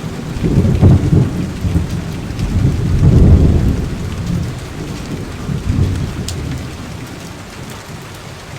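Steady rain with rolling rumbles of thunder: a low rumble swells about a second in, a longer one around three seconds, and a weaker one near six seconds.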